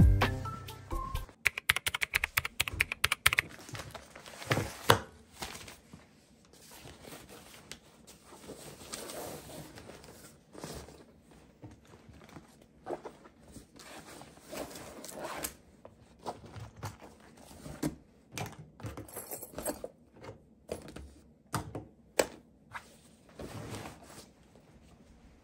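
Small objects being handled and packed by hand: scattered light clicks, taps and knocks on a wooden table, a quick run of clicks in the first few seconds, with soft rustling of a canvas tote bag near the end.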